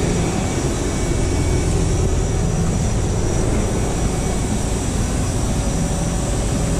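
Steady mechanical drone of running machinery, mostly a low hum with a hiss above it, holding even without starting or stopping.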